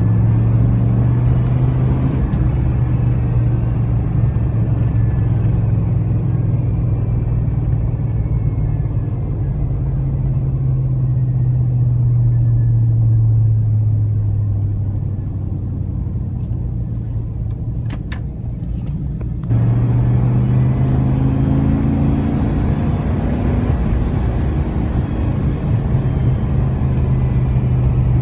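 V8 exhaust drone of a 5.3L LM7 through a Cherry Bomb muffler, heard inside the truck's cab as it drives. The low drone eases down in pitch and volume through the middle. About two-thirds through it jumps abruptly back up and holds steady.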